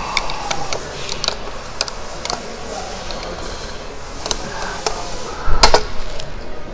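Scattered clicks and light knocks of a pick tool and hands working the upholstery clips of a car seat back, prying the cover off the metal seat frame, with one loud, sharp snap about five and a half seconds in.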